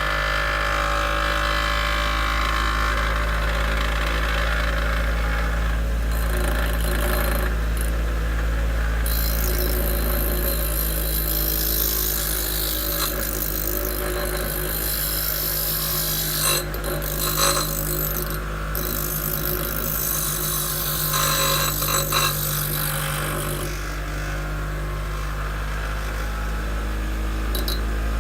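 Bench grinder running with a steady motor hum while a gray roughing diamond wheel is held lightly against its grinding wheel, truing the wavy rim flat. The gritty, hissing grind swells and fades several times as the contact changes.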